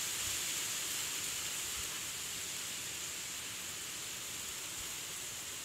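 Steady outdoor background hiss with a constant high-pitched shimmer, unchanging throughout, with no distinct events.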